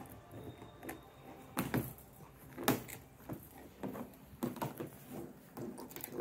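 German Shepherd puppies gnawing raw beef marrow bones: irregular clicks and short scrapes of teeth on bone, the sharpest about two and a half seconds in.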